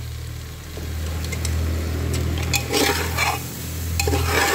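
Metal spatula stirring and scraping raw basmati rice into frying masala and vegetables in an aluminium pressure cooker, with a couple of rasping strokes in the second half over a gentle sizzle. A steady low hum runs underneath.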